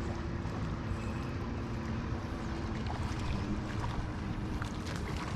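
Boat motor running steadily with a low hum, over wind noise on the microphone; a few light clicks near the end.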